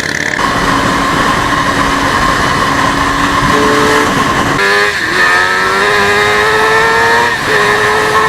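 Suzuki GSX-R sportbike's inline-four engine pulling under way. Its pitch drops sharply at an upshift about halfway through, climbs steadily, then drops again at a second upshift near the end.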